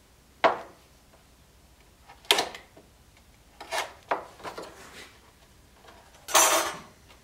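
Objects being handled on a wooden workbench: a sharp knock about half a second in as a ceramic mug is set down, then several more knocks and clatters of tools being picked up and put down, and a longer scrape near the end.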